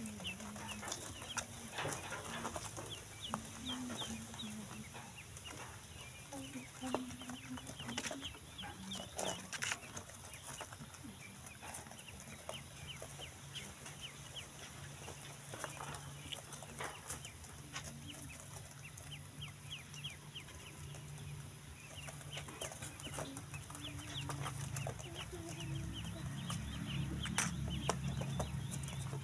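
Newly hatched domestic ducklings peeping constantly, many short high calls overlapping, with a few sharp taps among them. A low steady hum comes up in the second half.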